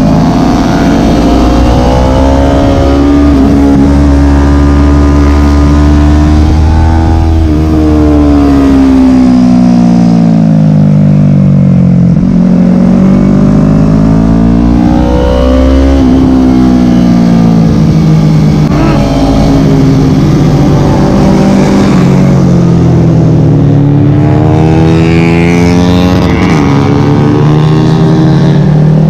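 Yamaha sport motorcycle engine at full track pace, heard from the rider's helmet: the engine note climbs steadily under hard acceleration, drops away as the bike slows for corners, then climbs again, several times over.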